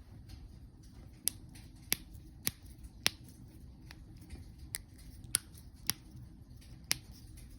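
A person's joints cracking after a workout: about eight sharp pops, four in a row roughly half a second apart, then a short pause and a few more.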